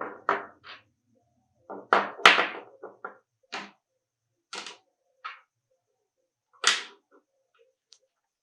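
Sharp clicks and knocks at uneven intervals, each with a brief ring-out, from the parts of an FN M1900 pistol being handled and set down during restoration work. The loudest knocks come about two seconds in and again near the end.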